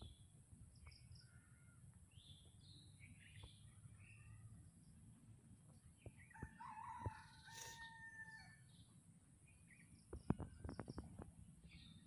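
A rooster crows once, faintly, in one held call of about two seconds starting about six seconds in, over scattered chirps of small birds. A few sharp clicks near the end.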